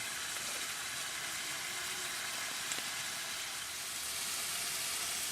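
Diced carrots, beans and green peas sizzling steadily in hot olive oil in a pan.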